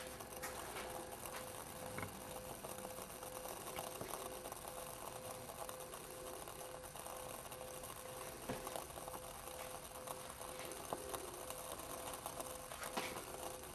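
Swiss Ranger Volcano Stove burning an Esbit tablet with added denatured alcohol under a metal cup of heating water: a faint steady hiss with a steady hum and scattered light ticks.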